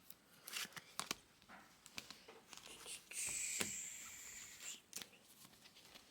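Trading cards being handled: faint clicks and slides as cards are shifted and laid down, with a longer rustle of card on card about three seconds in.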